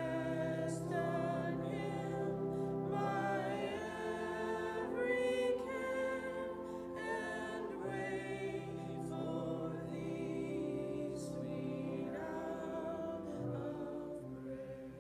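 A woman and a man singing a hymn together over held accompaniment chords, the song drawing to its close near the end.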